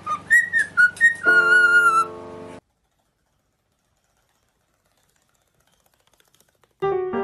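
Cockatiel whistling a short run of quick gliding notes, then one long held whistled note, over notes played on a digital keyboard. Both stop suddenly and there are about four seconds of dead silence before keyboard or piano music starts near the end.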